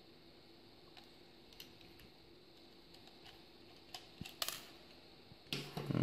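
Faint, sparse clicks and scrapes of a small screwdriver backing out the screws from a laptop hard drive's mounting cage, with a louder burst of handling noise near the end.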